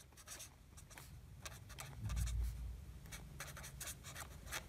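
Pen writing on paper: a run of short, faint scratching strokes. A low thump comes about two seconds in.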